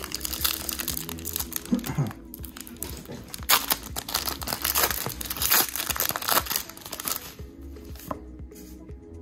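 Foil booster-pack wrapper being torn open and crinkled, a dense run of crackling that dies down about seven seconds in.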